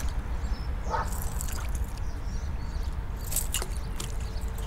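A short animal call about a second in, like a distant dog's yip, over a steady low rumble, with a few faint sharp clicks near the end.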